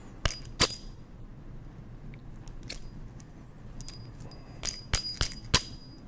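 Small steel gears and their shaft from a 1920s Monroe mechanical calculator clinking together as they are handled and knocked: two sharp metallic clicks near the start, then a quick run of four near the end, each with a brief high ring.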